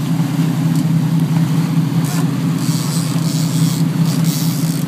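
A fishing boat's engine running steadily at speed, with the rush of its wake and spray over the hull.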